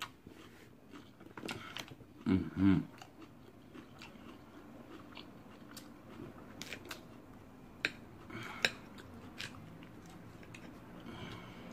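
Close-up chewing and biting of a mouthful of salad, with wet smacking and crisp crunches. A short hummed "mmm" about two seconds in is the loudest sound, and a few sharp clicks of a metal fork come near the end.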